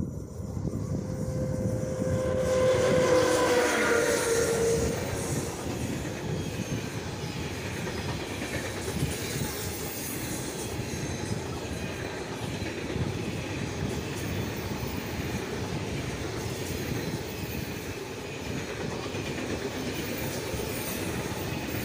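A freight train with an electric locomotive passes close by. From about two seconds in, a pitched tone with overtones sounds for roughly three seconds and drops slightly in pitch as the locomotive goes by. After that comes the steady rumble and clatter of a long rake of empty flat wagons rolling over the rails.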